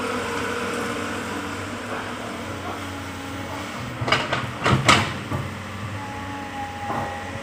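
Komatsu hydraulic excavator's diesel engine running steadily, with a quick cluster of sharp knocks about four to five seconds in as the bucket comes down into the soil to dig.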